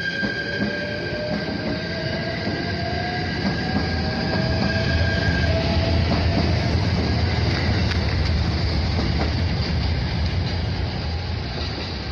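Shinano Railway SR1 series four-car electric train pulling out and accelerating past the platform. A steady high tone and a slowly rising motor whine are heard over the first half. Then the rumble of wheels on rail grows louder as the cars pass and eases off near the end.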